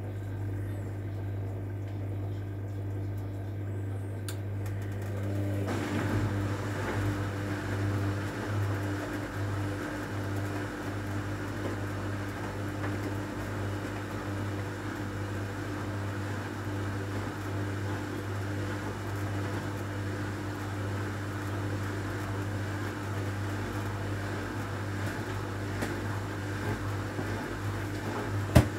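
Hotpoint WMA30 washing machine turning its drum of wet laundry during the final rinse, a steady motor hum. About five seconds in, the sound thickens as a second steady tone joins it. One sharp click comes near the end.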